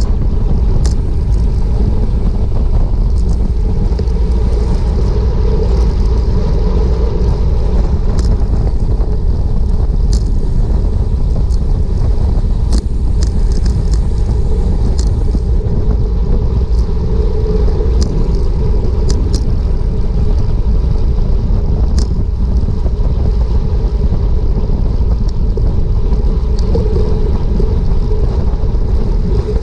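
Wind rushing over a bicycle-mounted action camera's microphone at about 25 mph, a steady loud rumble, with a few short sharp clicks scattered through the middle.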